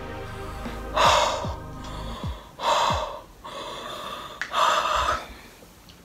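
A woman breathing hard through her open mouth: three loud, heavy gasping breaths, about one every second and a half to two seconds. Her mouth is burning from extremely spicy noodles.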